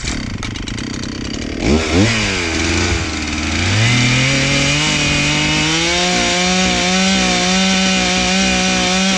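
Two-stroke chainsaw revving up from a low idle about two seconds in, rising to full throttle and holding there steadily while it cuts through logs.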